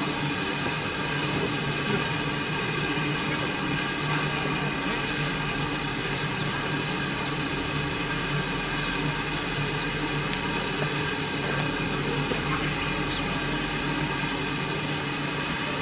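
GWR 1400 class 0-4-2 tank locomotive No. 1450 standing at the platform, letting off a steady hiss of steam.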